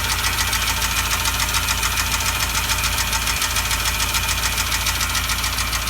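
Renault Logan petrol engine idling hot, with an even, rapid knocking from the engine up close. A mechanic took it for piston knock after the car was driven 500 km on three cylinders with a burnt-out spark plug; the owner thinks it could instead be the valves or a worn camshaft.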